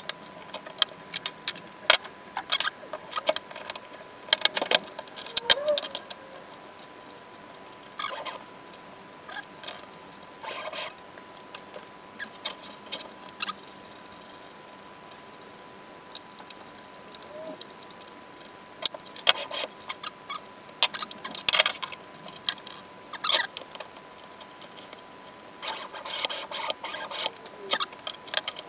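Irregular clicks, taps and light rattles of hands fitting the drive belt and small hardware on a 3D-printed CNC machine, with a faint steady high tone underneath.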